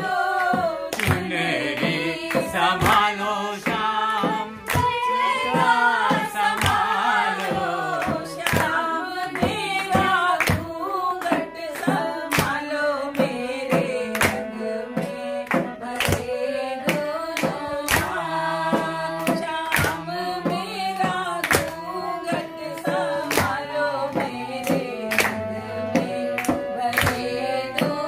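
Women singing a traditional Holi folk song (hori) together, accompanied by a dholak drum keeping a steady beat and a harmonium.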